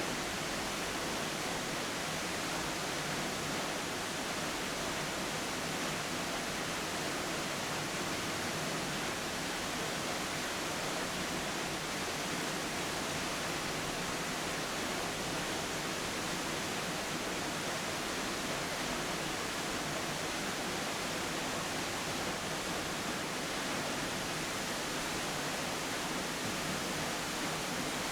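Minnehaha Falls, a steady, even rush of falling water.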